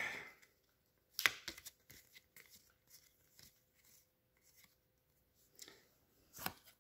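A trading-card booster pack's wrapper torn open with one short, sharp rip about a second in, followed by faint rustling. Faint rustle and handling of the cards comes near the end.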